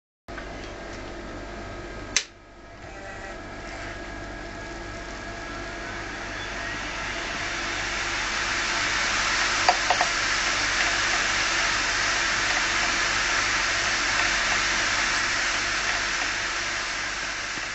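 Opened, damaged 500 GB hard disk drive being powered on. There is a sharp click about two seconds in, then a rushing hiss that builds over several seconds as the platters spool up and then holds steady, with a couple of small clicks midway.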